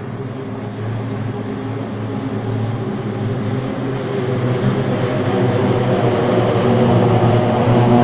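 Formation of single-engine propeller aircraft flying overhead: a steady, many-layered propeller drone that grows louder as they approach.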